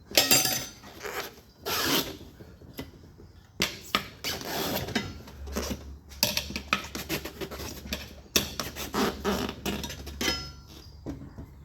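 Tire irons working a dirt bike tire's bead off the rim: irregular scraping, rubbing and clinking of rubber against metal. A faint low hum runs underneath for a few seconds in the middle.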